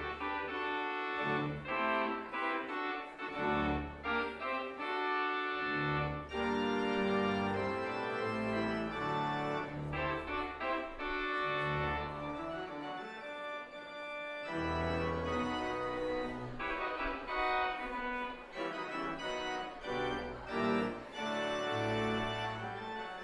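Church organ playing sustained chords over changing bass notes.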